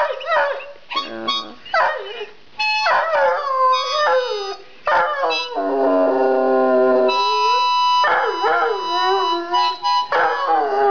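Hound dog howling along, or 'singing': a string of wavering howls and yips that slide up and down in pitch. A steady held tone sounds from about five to eight seconds in.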